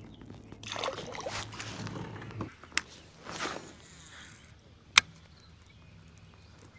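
Handling noises in a fishing kayak: rustling, swishing passages, then two sharp clicks, the louder one about five seconds in.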